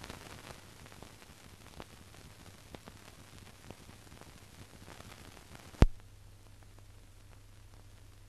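Surface noise of an old film soundtrack with no programme sound: a steady hiss and low hum with faint crackles, and one sharp loud pop a little before six seconds in.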